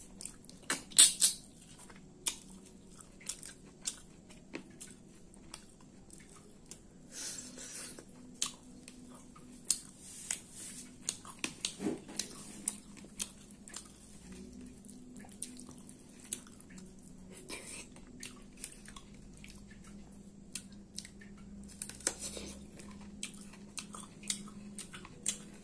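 Close-miked chewing and wet lip-smacking of a person eating soft rice and curry by hand, with many short sharp clicks scattered irregularly. A faint steady low hum runs underneath.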